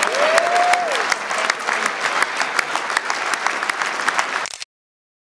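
Audience applauding, a dense patter of many hands clapping, with one held call rising and falling over it in the first second. It cuts off abruptly to silence near the end.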